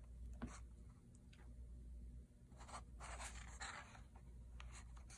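Faint rustle of a paper picture-book page being turned by hand: a few soft brushes and slides of paper, the longest about three seconds in.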